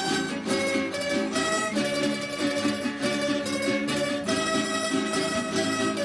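Estudiantina string ensemble of Andean bandolas and other plucked strings playing a folk tune, with a melody of quick plucked notes over strummed chords.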